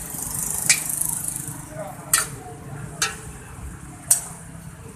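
Metal wok spatula striking and scraping a large wok while stir-frying saucy noodles: four sharp clanks about a second apart, over a sizzling hiss that is strongest in the first second and a half.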